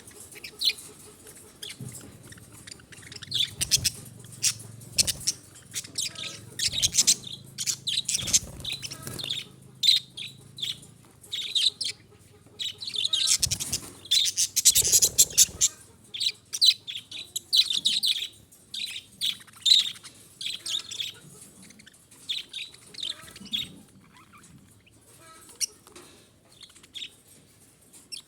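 Budgerigars chattering and warbling: a busy stream of short, high chirps that is densest around the middle, with a faint steady low hum underneath for the first ten seconds or so.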